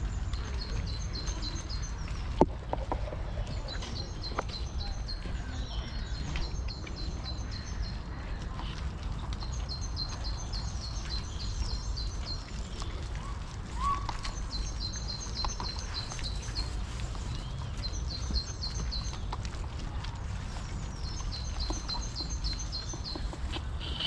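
A songbird singing a short, fast, high-pitched phrase of repeated notes, again every few seconds, over low steady background noise. A single sharp click about two and a half seconds in is the loudest sound.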